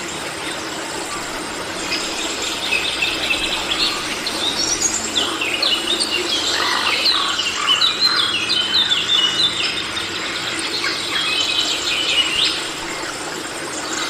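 Forest ambience: birds calling in a rapid, busy run of short chirping and squealing notes from about five to twelve seconds in, over a steady drone of insects.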